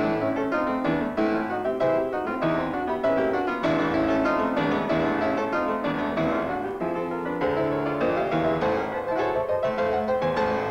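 Background piano music with quick runs of notes.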